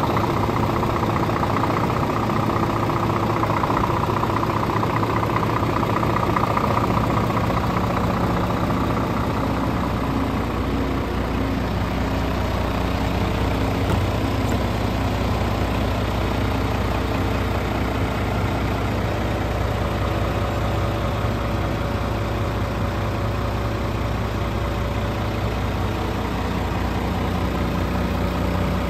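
Scania R450 truck's 13-litre inline-six diesel idling steadily.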